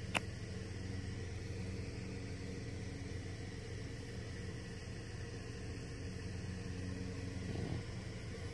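A steady low motor hum, like an engine idling, with a sharp click just after the start and a short swell of noise near the end.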